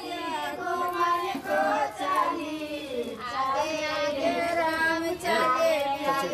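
High-pitched voices singing a song, with held, wavering notes and no clear instrumental backing.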